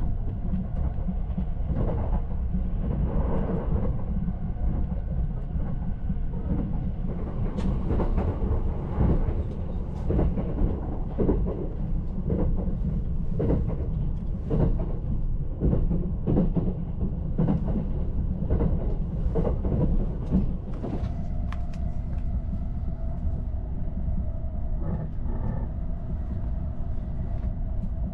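Running noise of the Azusa limited express (an E353-series electric train) heard from inside the Green car: a steady low rumble with frequent clacks of the wheels over rail joints. About three quarters of the way through a steady hum sets in under the rumble.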